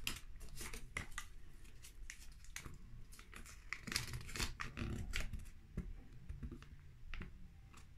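Small folded paper instruction leaflet being unfolded and handled, rustling and crinkling in short scattered crackles.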